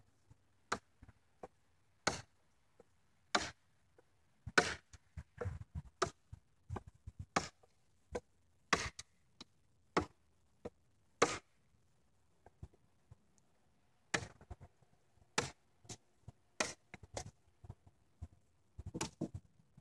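Schrade SCHF45 fixed-blade chopping knife hacking into a thick branch: sharp, irregular chops about one a second, pausing for a couple of seconds about two-thirds of the way through.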